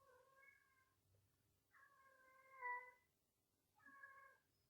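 A domestic cat meowing faintly three times, the middle meow the longest.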